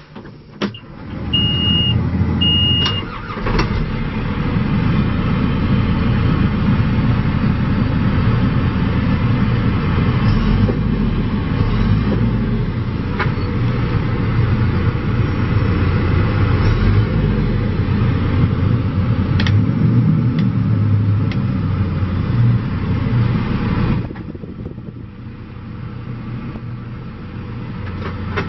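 John Deere 410J backhoe loader's diesel engine starting, with two short high beeps in the first few seconds. It then runs steadily, quietens about four seconds before the end and builds up again.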